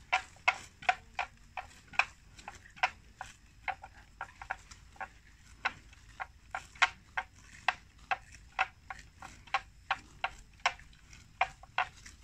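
Water buffalo cropping grass: an irregular run of short, crisp tearing snaps, about two or three a second, as they bite and rip off mouthfuls.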